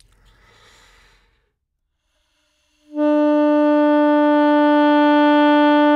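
A soft breath, then about three seconds in an alto saxophone starts one long, steady held note, a long-tone exercise for tone.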